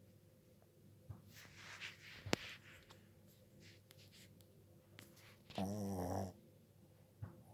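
A sleeping pet snoring: a breathy inhale about a second and a half in with a short sharp click in the middle of it, then one loud, rough snore with a wavering pitch about five and a half seconds in.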